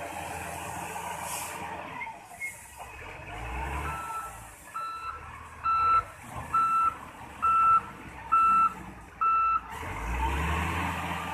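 SDLG wheel loader's reversing alarm beeping seven times, about once a second, in the middle of the stretch, over its diesel engine running. The engine revs up just before the beeps start and again just after they stop.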